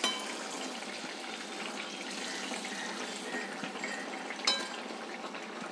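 Rice-and-banana appam batter deep-frying in hot oil in a pan: a steady sizzling hiss, with a light click at the start and another about four and a half seconds in, as a spoon is moved in the pan.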